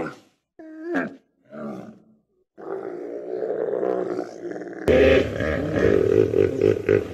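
Animal calls: three short pitched calls, then a longer rasping call. About five seconds in comes an abrupt switch to a louder, deep call with a low rumble from a hippopotamus.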